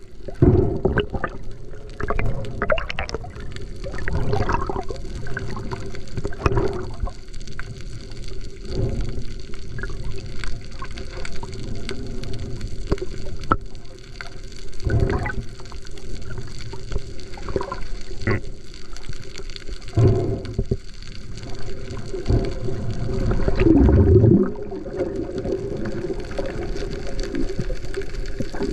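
Muffled underwater sound picked up by an action camera in its housing: low rumbling water movement and bubbling, with scattered clicks and knocks. A louder low sound with a falling pitch comes near the end.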